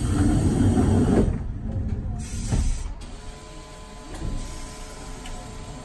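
Tram standing still: a rough mechanical rumble for about the first second, then a quieter steady hum of its onboard equipment with a faint whine.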